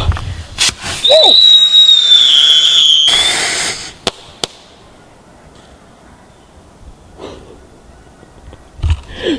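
Whistling firework going off: a loud, piercing whistle that slides slightly lower for about two seconds over a hiss, then a loud rushing burst, followed by two sharp cracks.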